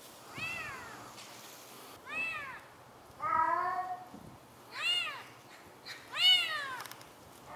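A calico cat meowing five times from a high ledge, each call rising then falling in pitch. The third call is longer and lower, and the last, a little past six seconds in, is the loudest. This is the calling of a cat that wants to be helped down.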